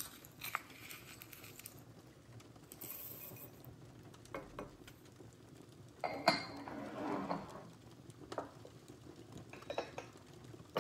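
Light clicks and scrapes of a wooden scoop in a ceramic bowl of chocolate chips, then ceramic clinks and knocks as a white ceramic chocolate-melting pot is handled on its warmer stand and its lid fitted. The loudest is one sharp knock about six seconds in, followed by a brief clatter.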